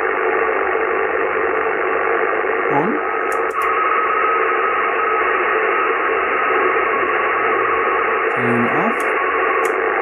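Receiver audio from a Yaesu FT-840 HF transceiver on 40 m lower sideband: a steady, heavy hiss of interference noise filling the narrow audio passband, heard with the MFJ-1026 noise canceller switched out. A faint whistle sits in the noise for a few seconds in the middle, and a couple of clicks come about three and a half seconds in.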